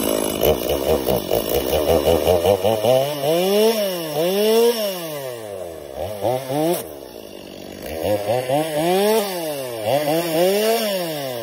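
Stihl MS250 45cc two-stroke chainsaw running, held at high throttle at first, then revved up and down repeatedly, the engine pitch rising and falling about once a second.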